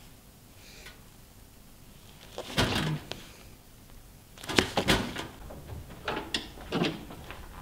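A few thumps and knocks, the loudest a quick clatter about five seconds in; near the end, clicks of a door's lever handle and latch as a door is pushed open.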